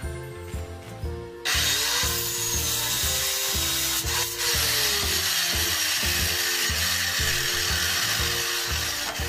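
A Makita circular saw starts up suddenly about a second and a half in and runs at full speed as it is pulled down through a pine board for an angled cut. Its tone sinks partway through as the blade works through the wood. Background music with a steady beat plays throughout.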